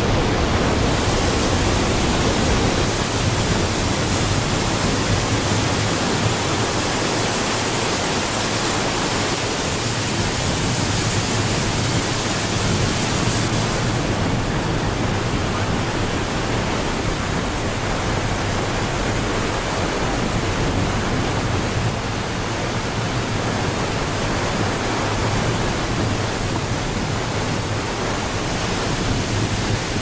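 Niagara Falls: a dense, steady rush of falling water without a break. About halfway through, the very top of the hiss thins a little.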